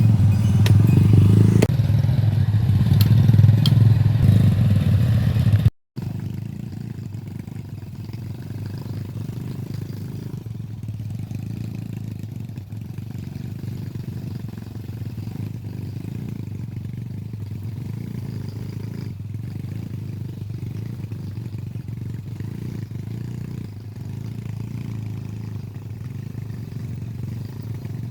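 A small engine running steadily with a low hum, louder for the first six seconds; after a brief dropout about six seconds in, it runs on more quietly.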